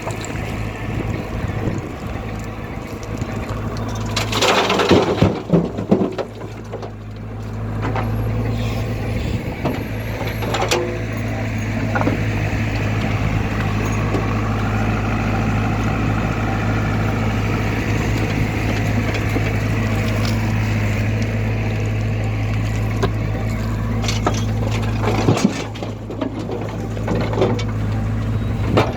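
Heavy diesel engine running steadily at a constant note, with a loud, rough burst of noise about four to six seconds in and a shorter one near the end.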